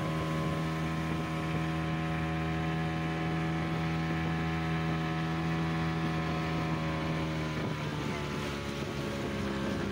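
Outboard motor of a small boat running at steady speed, with the hull cutting through the water. About eight seconds in, the engine note drops and changes as the throttle is eased.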